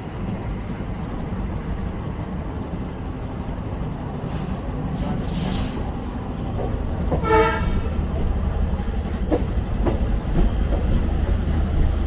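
ALCo diesel locomotive chugging under load as the train accelerates, heard from an open coach doorway: a steady low rumble that grows louder in the second half, with wheels clicking over rail joints. A short horn blast comes about seven seconds in, after a brief hiss a second or two earlier.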